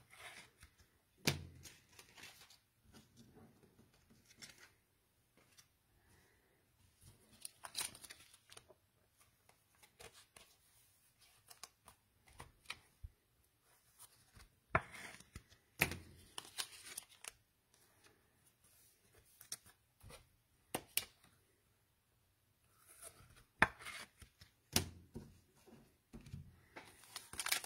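Faint, sporadic handling noise from trading cards and packs: a scattered run of sharp taps and clicks, a few of them louder, with soft rustling between.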